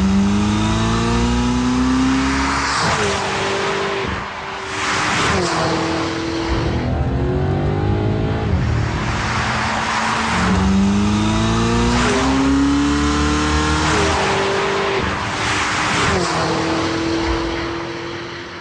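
Car engine accelerating hard through the gears: the note climbs steadily, drops sharply at each upshift and climbs again, several times over. It fades out near the end.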